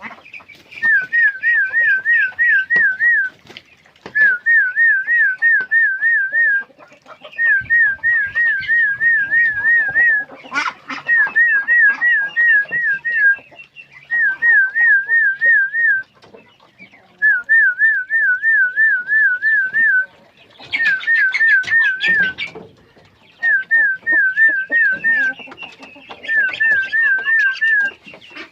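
A warbling whistle: a quickly wavering tone, repeated in phrases of two to three seconds with short pauses between, about ten times.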